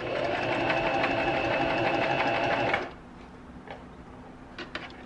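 Singer M1500 sewing machine running a line of stitches through fabric, its needle mechanism ticking rapidly and evenly for about three seconds, then stopping abruptly. This time the stitch forms properly. A few light clicks follow near the end.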